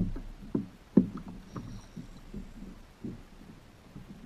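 Small waves slapping against a plastic fishing kayak's hull, with irregular low knocks and thumps, the loudest about a second in.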